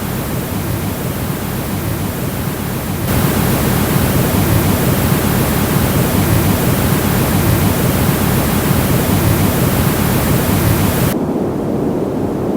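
Steady rushing noise that brightens abruptly about three seconds in and turns dull and muffled near the end, with sudden step changes typical of a filtered noise generator.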